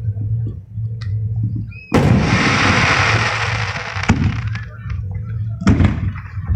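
Aerial firework shells bursting: a sharp bang about two seconds in followed by a couple of seconds of hiss, then further bangs near four and six seconds in, over a steady low rumble.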